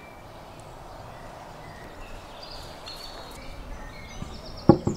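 Quiet outdoor ambience with a few faint bird chirps. Near the end, wine is poured from a clay jug into a glass, with one sharp knock just before the end.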